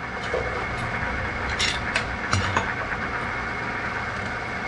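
Old Walker Turner drill press running steadily, its motor and spindle giving an even hum. Some light clicks and a knock come about one and a half to two and a half seconds in.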